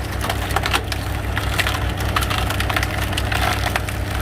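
Firewood cracking and splintering in many sharp snaps as a hydraulic log splitter forces it apart, the wood dry enough to shatter. A machine engine runs steadily underneath with a low pulsing hum.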